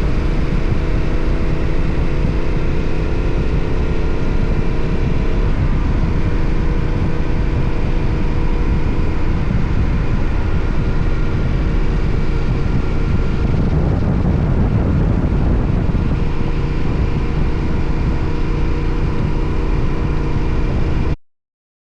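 Yamaha Ténéré 700's parallel-twin engine and exhaust running at road speed, with steady low wind rush. The engine note falls over the first five seconds as the bike eases off, then holds steady. The sound cuts out abruptly just before the end.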